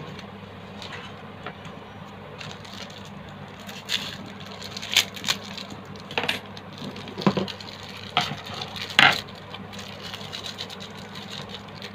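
Handling sounds: a series of scattered clicks, crinkles and knocks as a plastic-wrapped lump of bondon bait paste is unwrapped and a flat metal grater is set into a plastic bowl. The loudest knock comes about nine seconds in. A steady low hum runs underneath.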